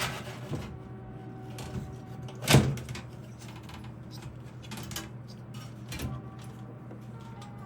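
Knocks and clicks of hard parts being handled and fitted while a PC is assembled, a few separate strikes with the loudest about two and a half seconds in, over a faint steady hum.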